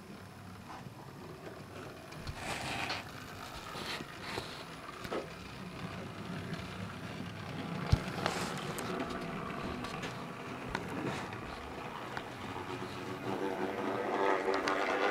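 N gauge model train running on the layout: a small electric motor whirring and wheels clicking along the track, with a sharp click about eight seconds in. A louder humming sound builds near the end.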